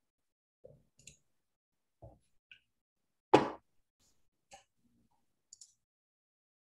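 A handful of scattered clicks from a computer mouse, with the loudest one about three seconds in.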